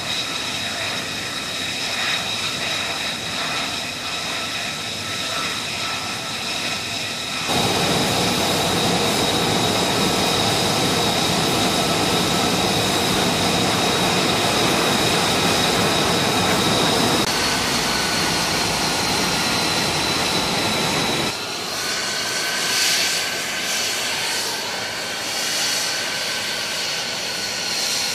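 F-35B Lightning II jet running on the ground: a steady high turbine whine of several tones over a loud rushing noise. The level and mix jump abruptly about a quarter of the way in and again about three-quarters through.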